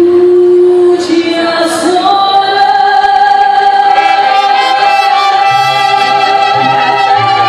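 A woman singing a ranchera with a mariachi band: she holds a long note, then about a second in slides up to a higher note and sustains it, with the band playing under her and low bass notes coming in during the second half.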